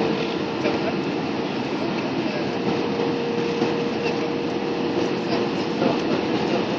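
Steady cabin noise inside an airliner: jet engine and air-conditioning rush with a steady mid-pitched hum.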